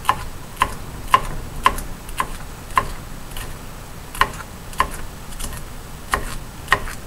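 Kitchen knife chopping green bell pepper on a wooden cutting board: a run of sharp knocks, about two a second, with a short pause near the middle.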